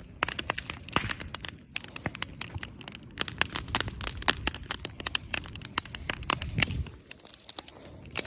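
Wood campfire crackling and popping: a dense run of irregular sharp snaps.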